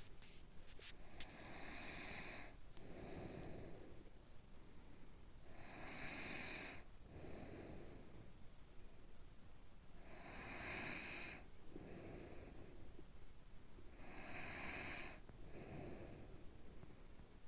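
Slow, even snoring: four breath cycles about four seconds apart, each a louder snore followed by a softer breath. There are a few faint clicks in the first second.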